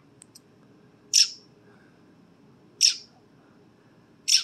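Fledgling American robin calling: three short, high chirps about a second and a half apart.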